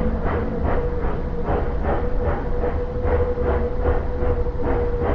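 Tweetsie Railroad train's open passenger cars rolling past on the rails, with a regular beat of about three knocks a second over a steady rumble and a thin steady tone.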